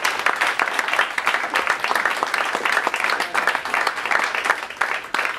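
Audience applauding after a comedian's set, fading away near the end.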